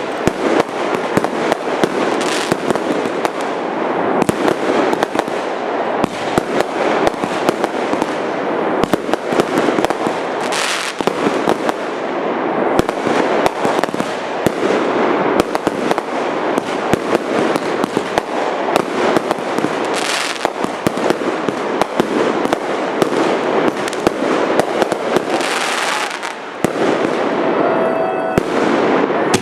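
Aerial fireworks bursting overhead: a dense, continuous barrage of bangs and crackling with no letup.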